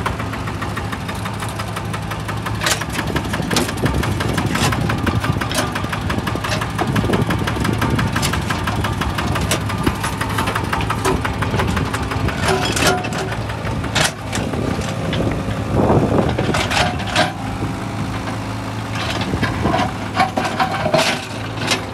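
Piquersa mini dumper's diesel engine idling steadily close by, with sharp knocks and clunks now and then as concrete blocks are loaded into its steel skip.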